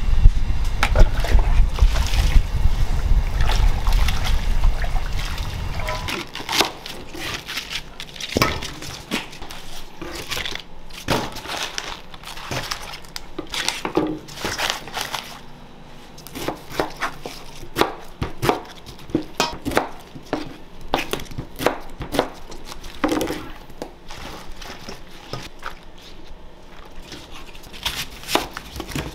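Kitchen food-prep noise: a low rumble for the first six seconds or so, then scattered knocks and clatters with some sloshing of water.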